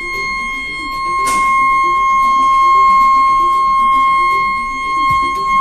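Ship's bridge alarm sounding one steady, high electronic tone, raised for a fire drill, with background music under it.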